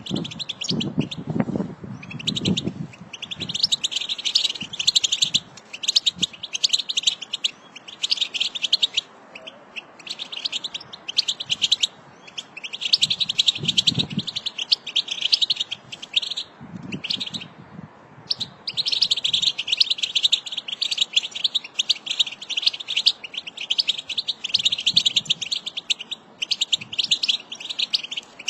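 American goldfinch singing: long runs of rapid, high twittering and warbling, broken every few seconds by short pauses.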